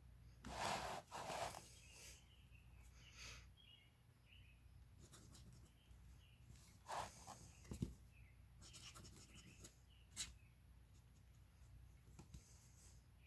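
Faint scratching of a fountain pen's flexible nib on lined paper as cursive letters are written, in short strokes, with a few louder scrapes about a second in and again near the middle.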